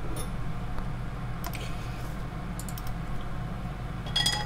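Thin layer of beaten egg sizzling in oil in a nonstick frying pan as it sets for a rolled omelette, a steady crackle with scattered light ticks. A brief cluster of clicks near the end.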